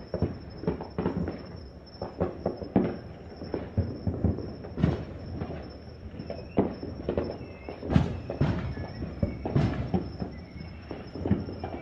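Consumer fireworks and firecrackers going off all around the neighbourhood: a continuous rumble of overlapping bangs and pops at irregular intervals, with sharper, louder reports about five, eight and nine and a half seconds in.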